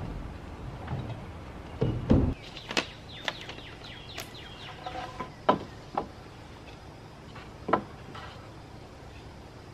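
A cordless drill runs in a short burst about two seconds in. Then come a series of light knocks and sharp clicks as a wooden board is laid against the aluminium frame of a solar panel.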